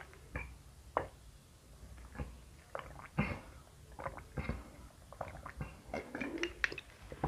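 A person gulping water from a plastic bottle, a steady series of swallows roughly every half second.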